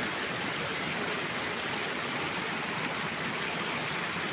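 Running water rushing steadily, an even hiss without breaks.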